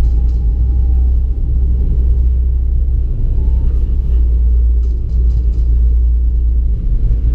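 Mercedes-Benz W124's OM603 straight-six diesel with a straight-piped exhaust, a steady deep rumble heard from inside the cabin while the car drives along.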